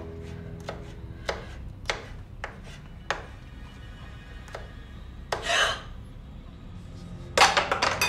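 Kitchen knife chopping on a cutting board in slow, uneven strokes, roughly one every half second to a second. A little over five seconds in comes a longer scraping rasp, and near the end a loud, quick clatter of several knocks.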